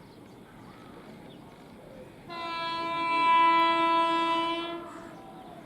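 Freight train locomotive horn sounding one steady blast of about two and a half seconds, starting abruptly about two seconds in and fading out near the end.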